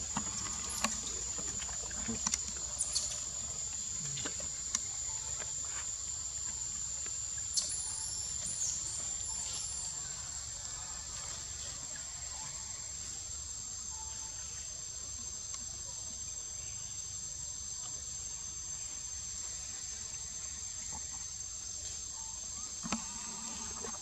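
Insects shrilling outdoors in a steady high-pitched drone, with a few faint clicks and rustles in the first ten seconds.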